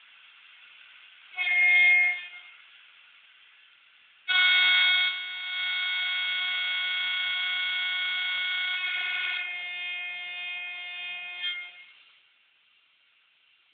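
Sound-equipped HO-scale model of a CP 5600 electric locomotive sounding its horn through the model's small speaker: one short blast, then a long blast of about seven seconds whose tone changes about five seconds into it.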